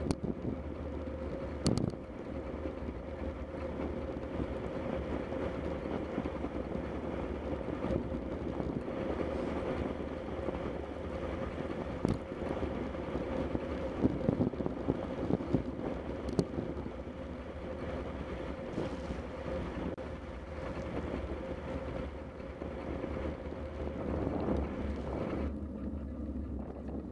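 Bicycle rolling along a wet asphalt road: steady tyre and road noise with wind on the microphone and a faint steady hum, broken by occasional knocks from bumps. The hiss thins out near the end.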